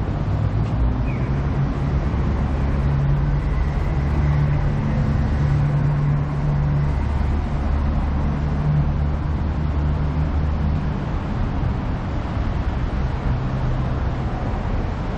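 Street traffic: a motor vehicle's engine running with a steady low hum that fades about eleven seconds in, over general road noise.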